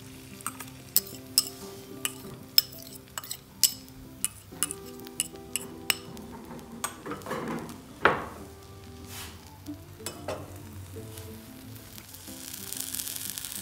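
A spoon clinking and tapping repeatedly as an egg, onion and tomato mixture is spooned into a hot oiled nonstick frying pan, with the oil sizzling under it; the sizzle grows louder near the end.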